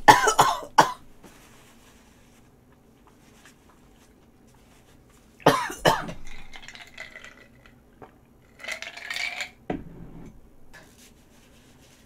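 A spoon clinks against the dish, then a woman gives a sharp cough about five and a half seconds in, followed by weaker coughing sounds around nine seconds in and a short thump. She is reacting to wasabi she didn't know was smeared on her spoon.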